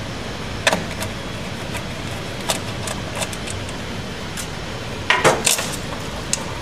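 Scattered metallic clicks and clinks of a nut driver, nuts and clamp hardware being worked on a steel recloser control box. A louder cluster of rattles comes about five seconds in, over a steady background hum.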